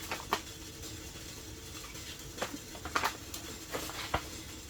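Eating sounds in a quiet tent: a handful of soft, sharp clicks and taps spaced irregularly about half a second to a second apart, from a spoon working in a food pouch and chewing.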